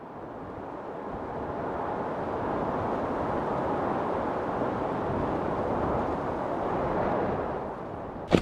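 Steady, wind-like rushing noise that swells in over the first couple of seconds, holds, then fades near the end.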